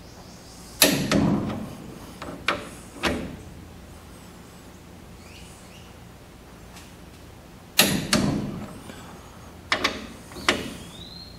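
Torque wrench tightening the carrier bearing cap bolts on a GM 8.5 10-bolt rear axle: two groups of sharp metallic clicks with a short ring, about a second in and again near the end.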